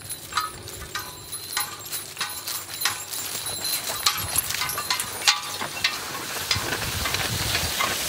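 A pair of heavy horses walking past pulling a plough: irregular hoof falls with clinking of harness chains. Near the end a rustling hiss grows as the plough passes close, cutting through stubble and soil.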